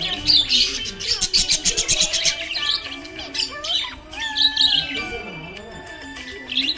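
Budgie chirping and squawking in a rapid, busy chatter of high-pitched notes, loudest through the first half and again briefly about four seconds in.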